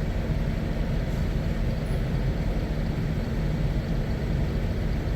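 Steady low rumble of motor-vehicle noise, even in level throughout, with a faint steady hum over it.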